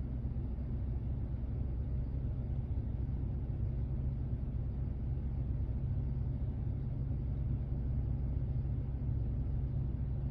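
Steady low rumble of outdoor street background noise, with no distinct events.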